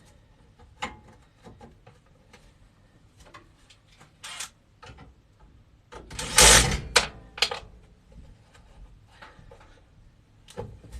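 Scattered metal clicks and knocks of screws and a sheet-metal cover being handled and fitted, with one louder scraping rattle about six and a half seconds in.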